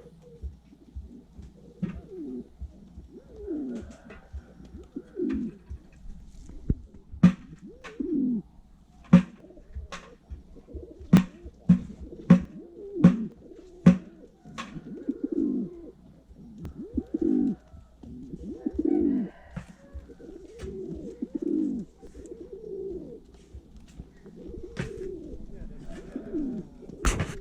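Domestic pigeon cooing over and over, each coo a low falling call, repeating every second or two. Sharp clicks or taps come about once a second through the middle and are louder than the coos.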